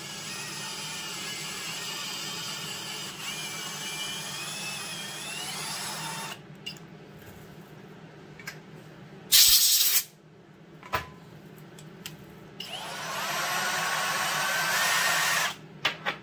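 Cordless drill running for about six seconds, its whine rising in pitch as it speeds up, then a loud, short blast of compressed air from an air blow gun, then the drill running again for about three seconds.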